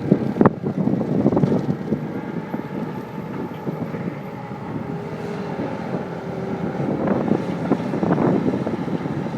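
Cat skid steer's diesel engine running under load, uneven in loudness, with wind buffeting the microphone.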